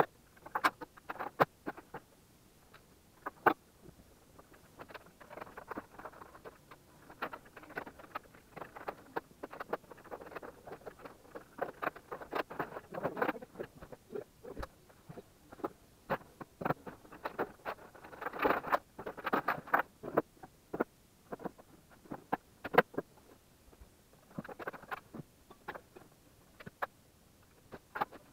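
Sped-up handling noise from hi-fi and studio equipment and cables being taken apart and moved: a rapid, jittery jumble of clicks, knocks and rustling, busiest about two-thirds of the way through.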